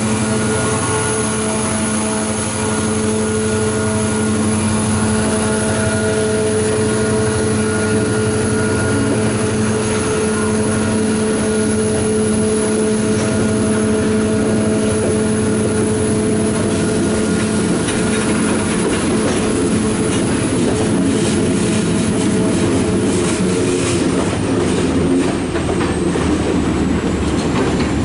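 Freight train of tank cars rolling past, the diesel drone of the yard job's locomotives fading away over the first twenty-odd seconds. The wheel rumble grows louder, with wheels clicking over rail joints in the later part and a faint high wheel squeal.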